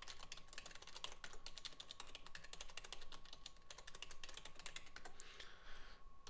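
Typing on a computer keyboard: a fast, continuous run of light keystroke clicks, with a faint steady tone underneath.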